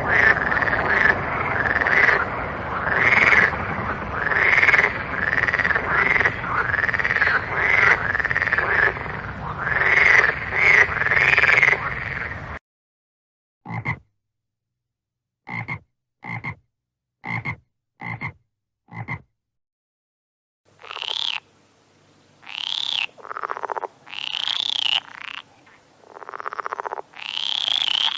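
Frogs croaking: a dense chorus of overlapping croaks for about twelve seconds stops abruptly, followed by six short single croaks spaced about a second apart in dead silence. After a short pause comes a different series of longer, higher calls, each rising and falling, about one every second or two.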